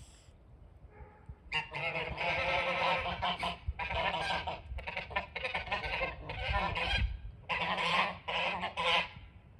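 Several geese honking, their calls overlapping in a dense run that starts about a second and a half in and fades just before the end.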